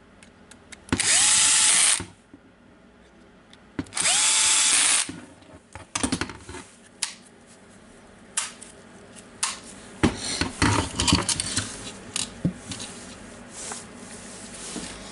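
Cordless drill/driver running in two short bursts of about a second each, about a second and four seconds in, driving screws into a plastic power-tool housing; each time the motor's pitch rises and then holds steady. After that come scattered clicks and knocks as the plastic tool is handled.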